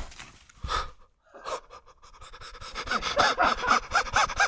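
A man panting hard in quick, short breaths with a voiced edge, about four a second, starting after a brief pause about a second and a half in.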